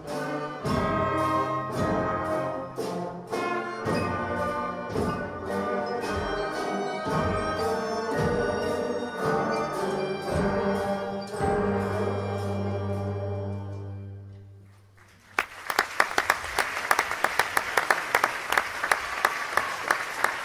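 School orchestra of strings, saxophones and brass playing the closing bars of a piece with a steady beat, ending on a long held low note that fades away. After a brief hush the audience bursts into applause.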